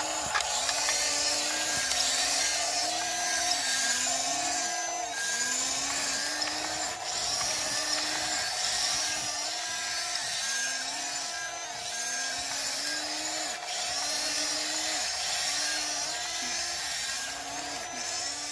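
Small electric drive motors of a radio-controlled toy bulldozer whining like a drill, the pitch rising and falling over and over, about once a second, as it is driven.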